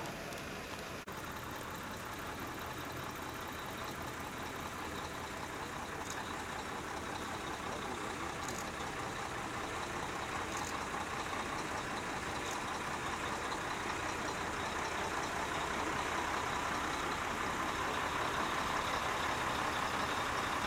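Heavy diesel truck engines running as a convoy of ex-military trucks drives slowly past, growing steadily louder as they come closer.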